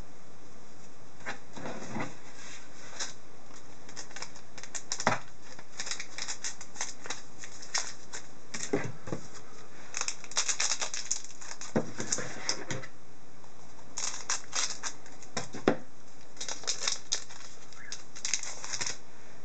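Foil wrapper of an Upper Deck Artifacts hockey card pack crinkling and crackling as it is handled and torn open. It comes in irregular bursts with a few sharper snaps among them.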